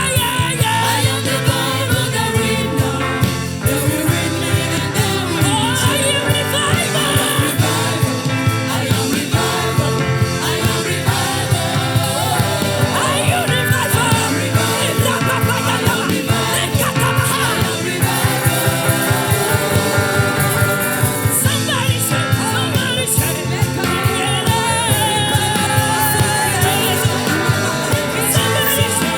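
Gospel song: a singing voice carrying the melody over a band with a steady beat.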